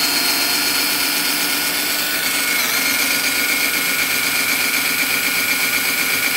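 Cordless drill-driver running steadily with its bit boring into laminated particleboard to enlarge a hole. There is a continuous motor whine with a brief dip in pitch about two and a half seconds in.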